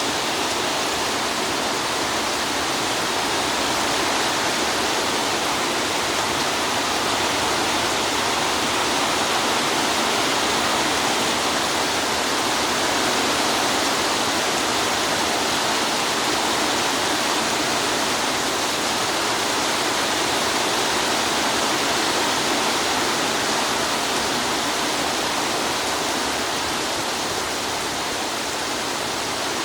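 Heavy downpour: rain falling hard and steady, a dense even hiss that stays at much the same level throughout.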